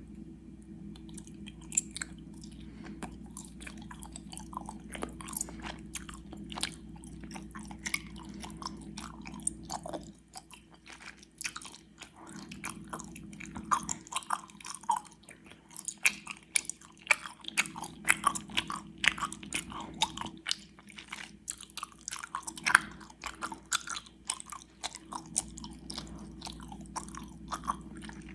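Close-miked chewing of gummy worms: a steady run of wet, sticky, clicking mouth sounds as the soft gummy candy is bitten and chewed. A faint steady hum sits underneath and drops away for a few seconds near the middle.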